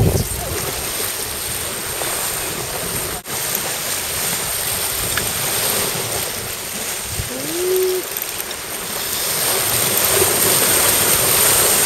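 Steady rush of wind and water on a sailing yacht under way, with wind buffeting the microphone. A short rising note, then held, is heard a little past halfway.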